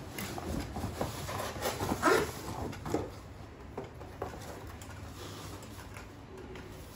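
Light clicks and knocks from a metal tripod light stand being handled as its legs are spread, with a short voice-like sound about two seconds in; quieter after about three seconds, with only a few scattered clicks.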